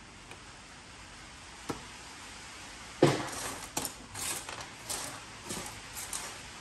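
Small pieces of scrap metal clinking as they are tossed into a bin. There is one light tick, then a loud clank about three seconds in, followed by a string of lighter metallic clinks.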